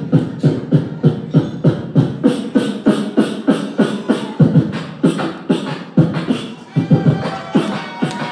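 Live beatboxing into a handheld microphone: a steady beat of kick, snare and hi-hat sounds made with the mouth, about four strokes a second. About seven seconds in, a held, hummed vocal tone joins over the beat.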